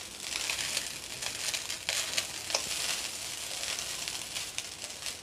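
Soy-sauced rice and vegetables sizzling in a kadhai over a high flame, tossed with a spatula. A steady hiss runs under uneven scraping strokes of the spatula against the pan.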